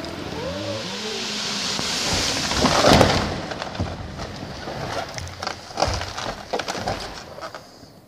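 A big fir tree falling: a rushing swish of limbs that builds to one heavy crash about three seconds in, followed by a scatter of sharp cracks and thuds of branches snapping and debris coming down, dying away by the end.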